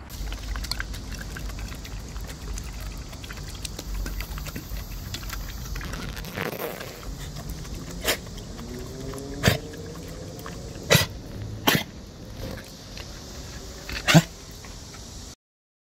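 Welsh corgi drinking water from a plastic bottle held to its mouth, with five sharp clicks of the plastic bottle in the second half. Before that, a low steady rumble.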